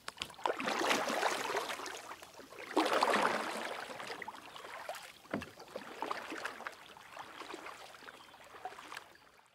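Water splashing and lapping, with many small drips and trickles. It swells twice, just after the start and near three seconds in, and fades out at the end.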